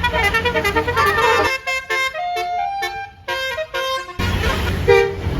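A Basuri musical air horn on a tour bus plays a quick melody of short, stepping notes over the low rumble of the bus. The rumble drops away in the middle while the horn notes carry on, then returns with one more short horn blast near the end.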